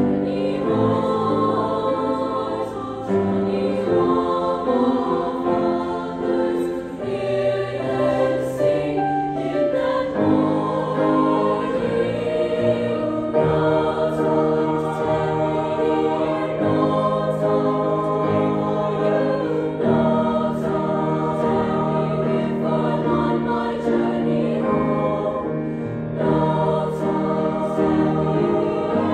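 Treble choir of young women's voices singing in several-part harmony, held notes moving from chord to chord.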